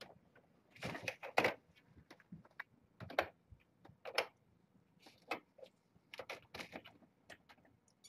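Irregular light clicks and knocks with some rustling, a few a second, the loudest pair a second or so in.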